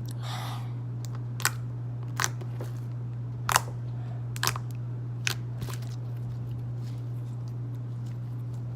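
Clear slime with foam beads being squeezed and played with, giving crunchy pops and sharp clicks, about six distinct ones in the first six seconds and softer after, over a steady low hum.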